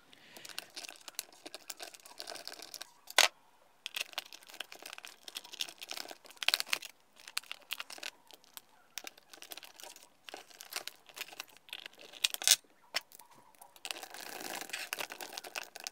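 Small screws being handled and driven into a plastic RC car chassis with a screwdriver. Scattered light clicks, taps and scraping of the metal tool against plastic, with a few sharper clicks, the first about three seconds in.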